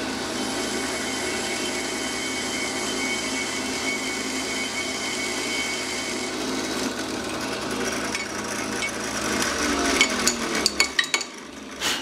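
Drill press running with a 3/32-inch bit cutting through an aluminium piston blank held in a jig. About nine seconds in the motor is switched off and its pitch falls as it spins down, followed by a few sharp clicks and knocks as the work is handled.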